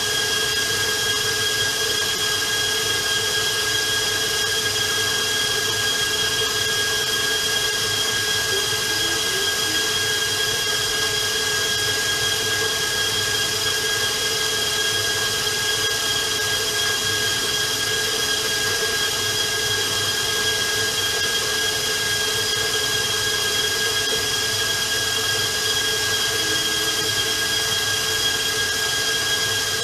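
Electric stand mixer running steadily with its paddle, beating royal icing toward stiff peaks: a constant motor whine with a few fixed tones and no change in speed.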